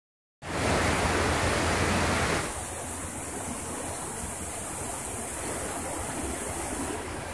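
Steady rushing of stream water, louder for the first two seconds and then quieter for the rest.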